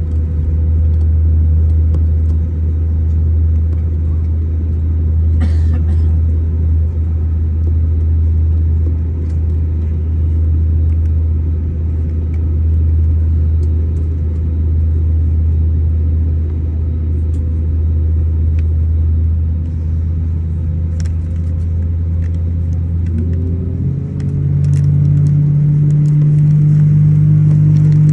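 Airbus A320neo jet engines running with a steady low rumble. About three-quarters of the way through, their pitch climbs and the sound grows a little louder as the engines spool up.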